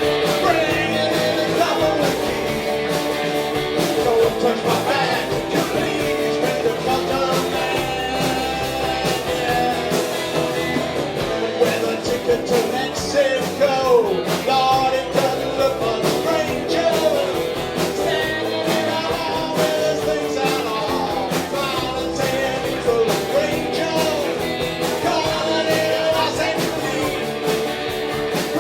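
A live rock band playing with singing: guitars and a steady beat under a lead vocal.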